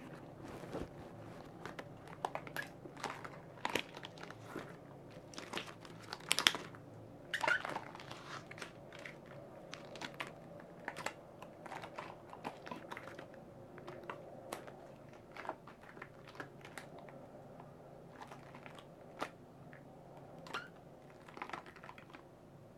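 Long black latex gloves creaking, squeaking and crinkling as the gloved hands flex and rub together. The sounds come as irregular short squeaks and clicks, loudest about six to eight seconds in.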